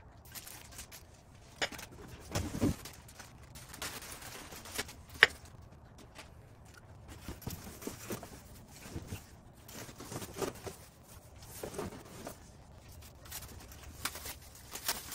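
Unicycle parts being unpacked from a cardboard box: scattered knocks, scrapes and rustling of plastic wrapping and cardboard, with a low thump about two and a half seconds in and a sharp knock about five seconds in.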